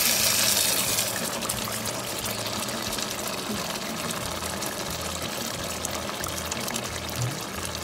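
Thick chicken curry simmering in a steel pot, bubbling and sizzling with a steady crackle as a spatula stirs through it, a little louder in the first second.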